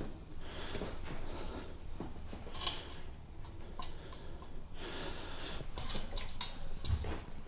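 Quiet handling sounds of breaking a motorcycle tyre's bead with the bike's weight: scattered light knocks and creaks, with a few heavy breaths from the effort of pushing.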